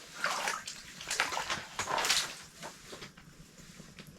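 Water splashing in an ice-fishing hole as a hooked fish is pulled up and thrashes, a run of irregular splashes in the first couple of seconds that then dies down.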